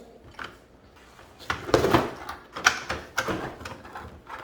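Plastic toy tomb being handled: a run of clattering knocks and scrapes, with the loudest ones about two seconds in.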